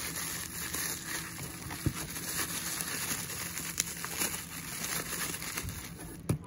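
Plastic bubble wrap crinkling and rustling as hands handle and pull a wrapped gauge from a cardboard box, with a few sharp clicks; the loudest click comes near the end.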